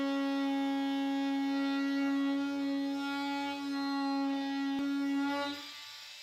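Handheld power tool cutting window openings in a fibreglass boat cabin side, giving a steady buzzing whine at one unchanging pitch. It stops a little before the end, with a single click shortly before that.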